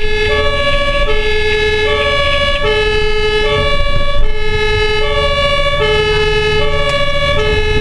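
Ambulance two-tone siren (German Martinshorn) sounding on an emergency run, alternating steadily between a low and a high note about every three-quarters of a second. Engine and road rumble from inside the cab run beneath it.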